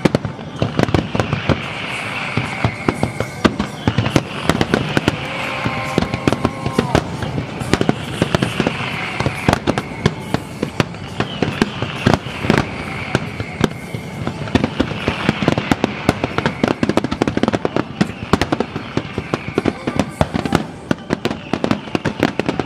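Aerial fireworks display: a dense, unbroken run of shell bursts and crackling, many sharp bangs a second.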